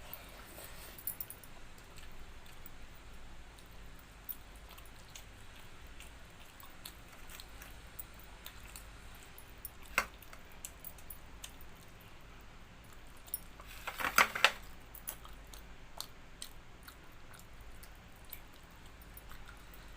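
Someone eating a meal of rice, dal and fried potato: quiet chewing with scattered small clicks and clinks against the plate, a sharp click about halfway through and a louder run of clinks about two-thirds of the way in.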